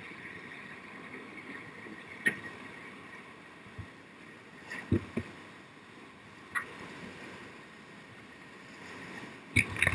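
Whitewater of Lava Falls rapid on the Colorado River rushing steadily around a raft, with several sharp splashes of waves breaking over the bow, the loudest near the end.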